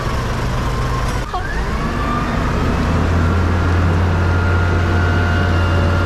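Large diesel forklift's engine running under load as it lifts a shipping container: a steady low drone with a thin steady tone above it. The drone grows louder about two seconds in.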